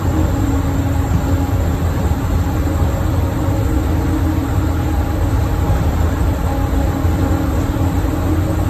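Airport people-mover train running, heard from inside the car: a steady low rumble with a faint hum over it.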